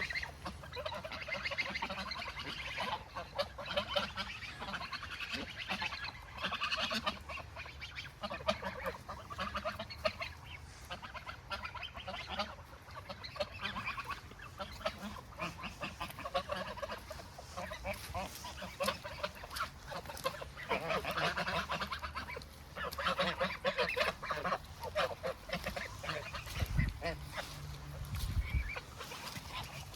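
A flock of domestic ducks and geese calling over one another almost without pause. A brief low rumble comes near the end.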